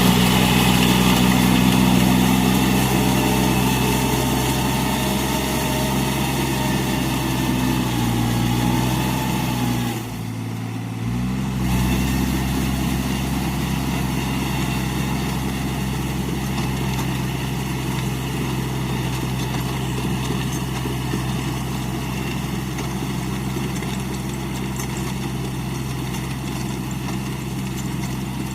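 Iseki NT540 tractor's diesel engine running at a steady speed, with a short dip in its low note about ten seconds in before it steadies again.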